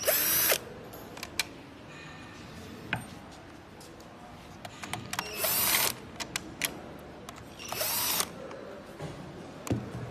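Cordless drill/driver backing out screws in three short spurts: one right at the start, one about five and a half seconds in and one about eight seconds in. Small clicks and taps come in between.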